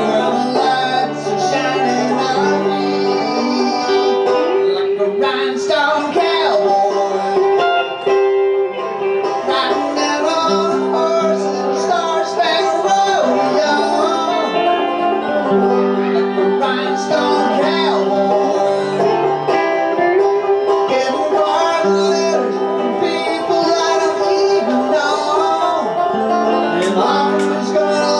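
Live bluegrass duo playing an instrumental passage on five-string banjo and electric guitar, the banjo picking continuously over the guitar.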